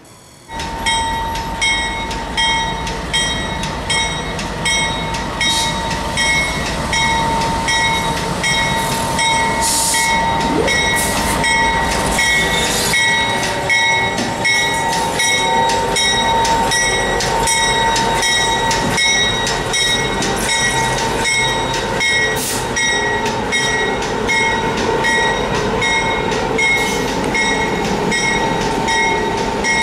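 Pacific National NR class diesel-electric locomotive and The Overland's passenger carriages running: a steady engine sound with a steady high whine throughout, and a regular light clicking.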